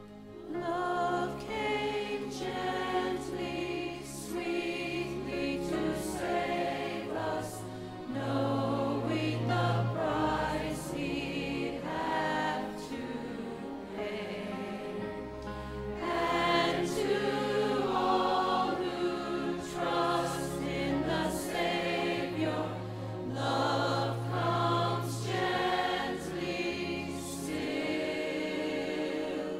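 A mixed church choir singing a Christmas cantata piece in full voice, over instrumental accompaniment holding long low bass notes.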